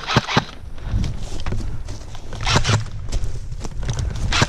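Airsoft gun firing in quick single shots, two sharp pops about the first half-second, then movement noise with scattered ticks and a few more sharp cracks about two and a half seconds in and near the end.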